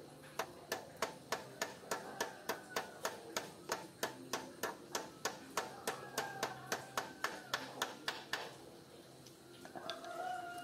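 Steady, even hammer taps on a motorcycle's steering-head cone (bearing race) in the frame's head tube, about three taps a second for some eight seconds, then stopping. Near the end a long, wavering pitched sound comes in.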